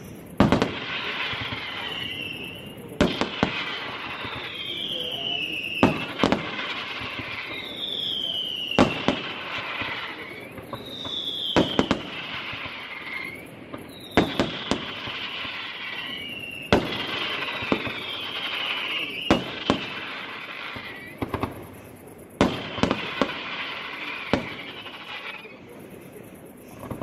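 Fireworks display: shells bursting with a sharp bang about every two to three seconds, each bang followed by a falling whistle, with a steady crackle between them.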